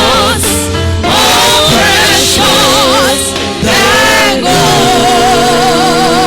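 Gospel worship song sung by several voices with strong vibrato over a low accompaniment, settling into one long held note about four and a half seconds in.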